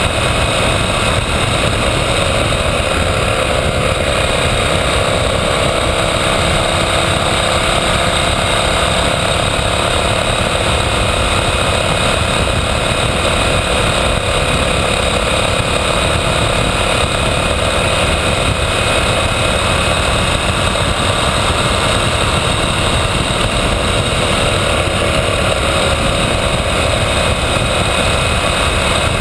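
KTM 990 Adventure's V-twin engine running at a steady cruising speed, under an even rush of wind over the bike-mounted camera's microphone.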